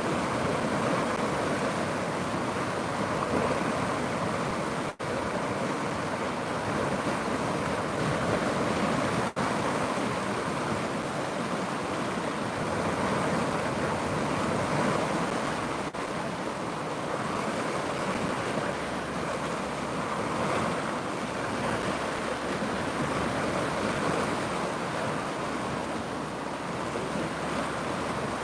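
Steady rush of flowing river water, even and unbroken apart from two very short cuts in the sound at about 5 and 9 seconds.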